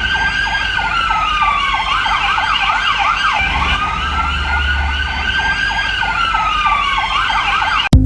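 Emergency-vehicle siren: a slow wail rising and falling over a few seconds, layered with a fast yelping warble. It cuts off suddenly near the end.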